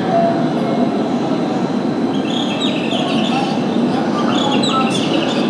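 Station platform ambience: a steady hum and rumble from the electric commuter trains standing at the platform. Two short runs of high, bird-like chirps come in about halfway through and again near the end.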